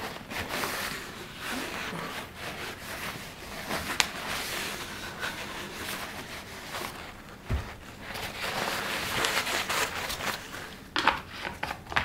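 Paper towel crinkling and rubbing as gloved hands wipe spilled dye off a leather-dye bottle. A sharp click comes about four seconds in and a dull knock about seven and a half seconds in.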